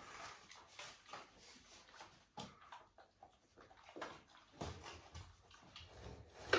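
Faint, scattered soft wet noises: a chocolate Labrador retriever chewing and licking a piece of food taken from a toddler's hand, with small hands handling food on a plate.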